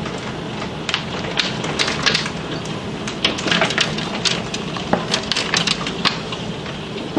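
A hail storm: a steady hiss of falling rain and hail, with many irregular sharp cracks of hailstones striking hard surfaces.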